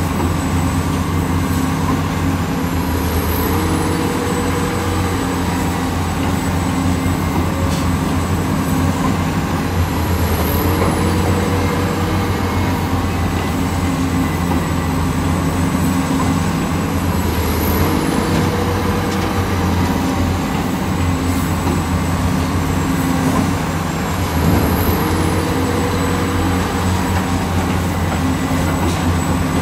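Hitachi hydraulic excavator's diesel engine running steadily under load, its hydraulics shifting pitch with each dig-and-swing cycle about every seven seconds. Each cycle brings a short, faint high squeal that slides down in pitch.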